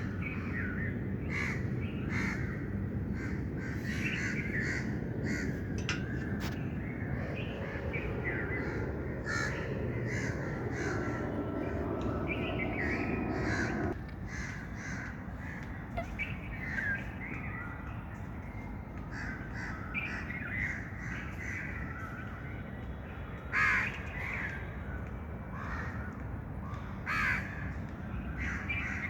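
A group of birds calling, many short calls overlapping without pause, over a steady low background noise that drops away suddenly about halfway through.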